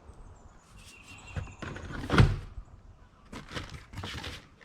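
Objects being handled and rummaged through in a box: scattered clatters and knocks, the loudest a heavy knock about two seconds in.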